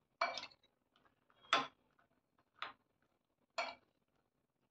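Metal spoon clinking and scraping against a glass bowl as a dry mix of roasted makhana is tossed: four short strokes about a second apart.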